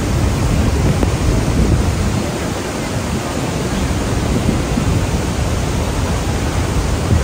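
Iguazú Falls heard close up: a steady, dense rush of a huge volume of water pouring over the cliffs, heaviest in the low rumble.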